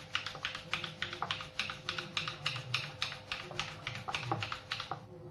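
Wooden dal ghotni (hand churner) twirled briskly in milk in a clay pot, clicking quickly and evenly, about four strokes a second, and stopping near the end. This is warm milk being churned with starter curd to set curd.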